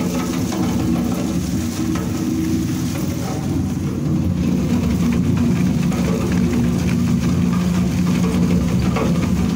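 Schuko ZM800 15 kW wood-waste shredder running, a steady low hum with several tones held together, as it shreds thin wooden strips fed into its hopper.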